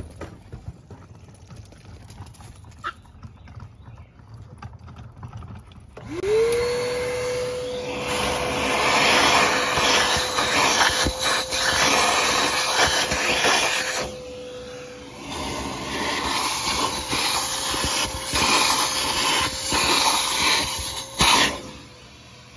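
A wet/dry shop vacuum starts about six seconds in, its motor winding up to a steady whine. It then sucks the vinegar soak out of an engine cylinder, with loud, uneven rushing and slurping that eases off for a moment midway and again near the end. A few faint clicks come before it starts.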